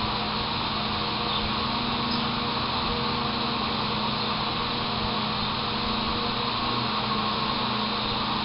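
Steady mechanical whir with a constant low hum, unchanging throughout, like a small electric motor or fan running in the room.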